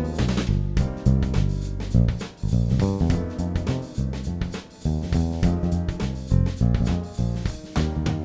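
Instrumental music with guitar, bass guitar and drums playing to a steady beat.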